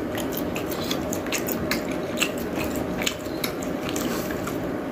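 A person chewing a mouthful of sauced grilled meat close to the microphone, with many quick wet clicks of the mouth over a steady low background hum.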